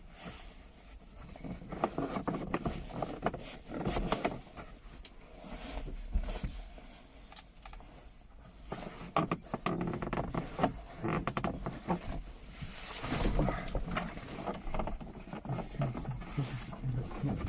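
Plastic A-pillar trim panel being worked into place by hand: irregular knocks, clicks and rubbing of plastic trim against the pillar and headliner as its clips are lined up.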